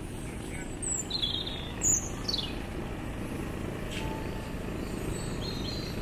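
Small birds chirping: a few short, high calls in the first couple of seconds, some sliding down in pitch, and a few fainter ones later, over a steady low rumble.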